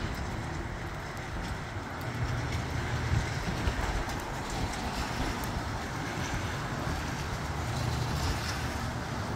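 Gusty wind rushing and buffeting the microphone, a low rumble that swells in gusts about two seconds in and again near the end, with rain falling in the background.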